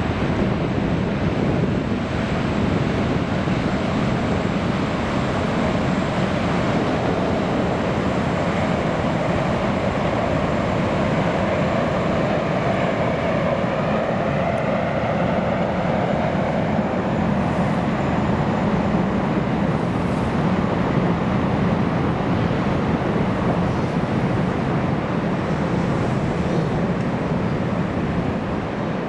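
Boeing jetfoil running foilborne at speed: the steady whine of its gas turbines over the rush of its waterjet spray. A faint tone in the noise falls in pitch about halfway through as the craft goes past.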